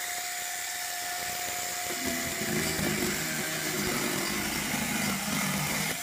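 Homemade 12-volt electric chainsaw, a Bear Claw winch motor driving a salvaged Poulan bar and chain, running with a steady electric whine. About two seconds in, the chain bites into a log: a rough, chattering cutting sound sets in and the motor's whine sags under the load.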